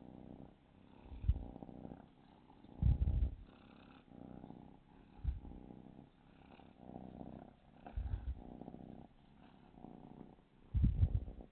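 Calico kitten purring while being stroked on the head, the purr rising and fading in waves with her breathing. Several brief, louder low thumps stand out above the purr.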